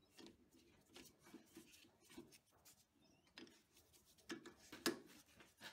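Faint scattered metal clicks and taps as a stainless steel blank is set in a stopped lathe's chuck and the chuck key is turned to tighten the jaws, with one sharper click a little before the end.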